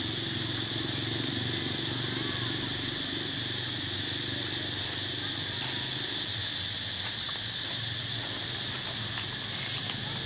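Steady high-pitched drone of insects chirring without a break. Underneath it, a low murmur fades out about halfway through.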